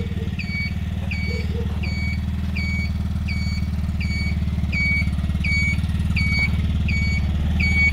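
The 200 cc engine of a Xunjie cargo motor tricycle idling steadily, with the tricycle's electronic beeper sounding a short beep evenly, about once every 0.7 seconds.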